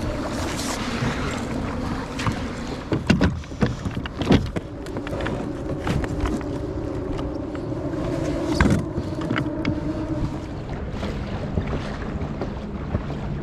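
Kayak paddling: the paddle blades dip and splash in the water, with a few sharp knocks around three to four seconds in and again near nine seconds. Wind on the microphone and a steady low hum run underneath.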